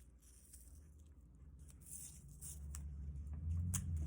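Border tape being handled and pressed onto the sides of a sheet of paper: faint rustling and scattered small ticks, with a few sharper clicks and a low rumble that grows louder in the last second or so.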